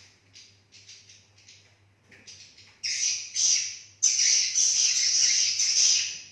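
Swiftlets twittering at the roost: soft repeated chirps at first, then from about three seconds in much louder, dense twittering that breaks off just before the end.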